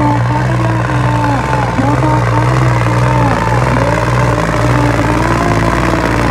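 New Holland 60 hp tractor's diesel engine labouring at full power while dragging a heavy load through ploughed soil, running loud and steady with its pitch wavering up and down about once a second.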